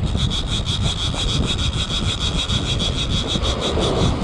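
Abu Garcia Ambassadeur 5000 baitcasting multiplier reel clicking rapidly and evenly, about nine clicks a second, as its handle is cranked to reel in a hooked small rock cod.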